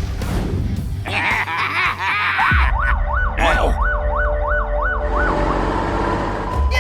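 Cartoon emergency-vehicle siren sound effect, a fast up-and-down wail of about three cycles a second that starts a little before the middle and stops about two seconds later, over other cartoon sound effects and a low hum.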